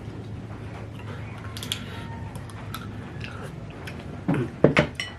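A person chewing and eating ramen noodles close to the microphone, with light clicks and mouth sounds, then a couple of loud short slurps about four seconds in.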